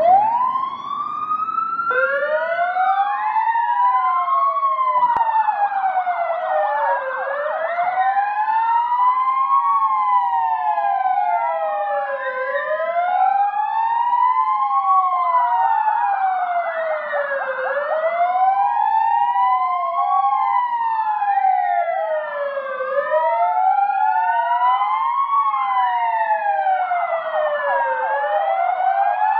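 Sirens of several fire engines wailing together, their rising and falling tones overlapping out of step, one slow wail repeating about every five seconds, with a rapid warble cutting in at times. The sirens are sounded together as a tribute to firefighters who died.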